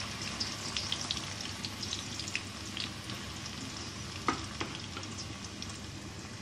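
Onion paste frying in hot oil in a metal wok: a steady sizzle with scattered small crackles and pops. Two sharper clicks come about four and a half seconds in.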